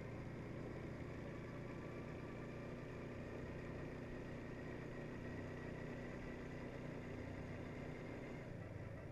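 Quad bike engine running steadily while riding along, heard from the rider's seat. Its note shifts slightly near the end.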